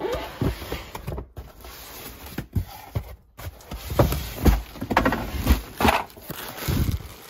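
Cardboard box and plastic shopping bag being handled: irregular rustling and knocks as the box is opened and the bag of clothing pulled at, loudest about four to six seconds in, broken by a couple of short silent gaps.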